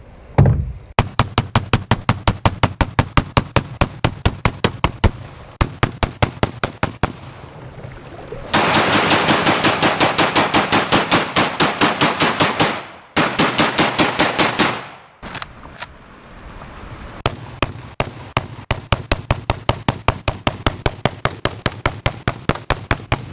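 AK-47 rifle firing 7.62×39 rounds in a long rapid string, several shots a second, after a single first shot. The firing breaks off briefly twice near the middle, then carries on.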